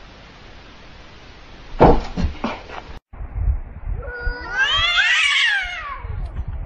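A few short, loud noisy bursts about two seconds in. Then, after a cut, cats yowling at each other: a long wavering caterwaul of overlapping rising and falling cries lasting about two seconds.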